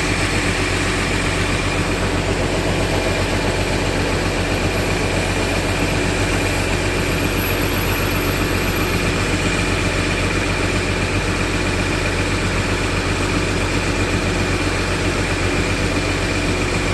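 Diesel engine of an intercity bus idling steadily, with a thin steady high tone over the rumble.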